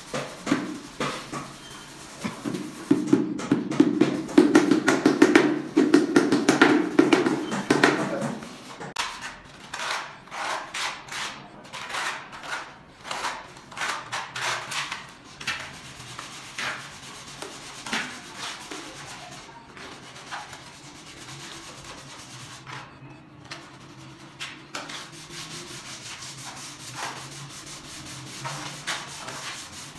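Repeated scraping and rubbing strokes of a small block drawn back and forth by hand over cement tile adhesive on a concrete floor. The strokes are loudest and densest in the first eight seconds and come sparser and fainter after that.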